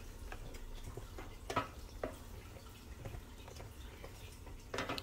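Faint ticks and small pops from a wooden spoon stirring milk and sugar at a boil in a stainless steel pan, with a couple of sharper clicks about a second and a half and two seconds in. The mixture is being cooked down and kept moving so it does not stick.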